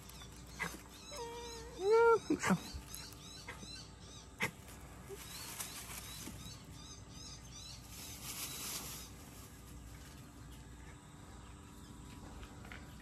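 Orange tabby cat meowing twice near the start, a short call followed by a louder one that rises and falls. Faint bird chirps are heard behind it.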